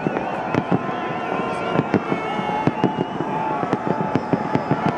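Aerial fireworks bursting: a dense, irregular run of bangs and crackles, with a wavering high whistle-like tone over them for the first few seconds.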